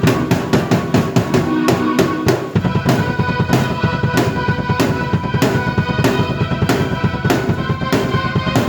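Drum kit and keyboard played together by one performer: a steady beat on bass drum, snare and cymbals under held keyboard notes. The pattern changes about two and a half seconds in.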